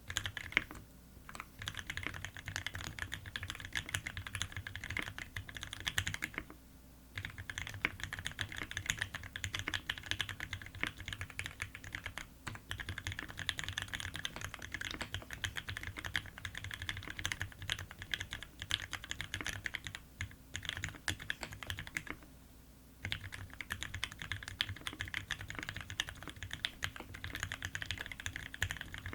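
Fast, continuous typing on a Keycult No.2 custom mechanical keyboard with linear Gateron Ink Black switches, lubed with Tribosys 3204 and TX oil, mounted on a brass plate under GMK keycaps. The keystrokes run in a dense stream, broken by a few brief pauses.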